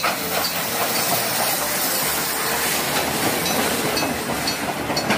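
Steam locomotive made up as Thomas the Tank Engine passing with its train of coaches: a steady hiss of steam mixed with the running noise of wheels on the rails.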